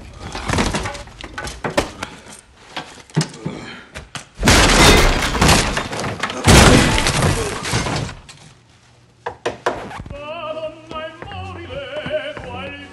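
Fight sound effects: crashes of breaking porcelain and fixtures mixed with body impacts, loudest in two long crashes about four and a half and six and a half seconds in. From about ten seconds in, music with a singing voice wavering in pitch takes over.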